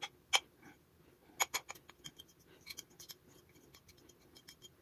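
A plastic spoon tapping and scraping against a ceramic plate and a glass chopper bowl as grated cheese is pushed into the bowl: a scatter of light clicks and taps, a few at a time.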